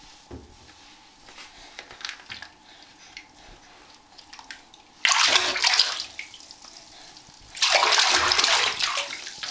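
Baby splashing bath water in a tub with his hands: soft drips and sloshes at first, then two loud bursts of splashing, one about five seconds in and a longer one near the end.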